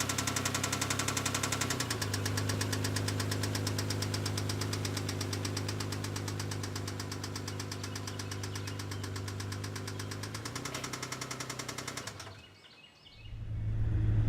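2002 Isuzu Trooper's 3.5-litre V6 running with a fast, even knocking from the bottom end: rod knock from a worn connecting-rod bearing, caused by oil starvation. About twelve seconds in the sound drops away briefly, then comes back.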